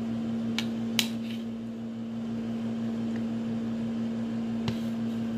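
A steady machine hum, like a room air conditioner or fan, with three light clicks of a spoon against a food container, one after about half a second, one a second in and one near the end.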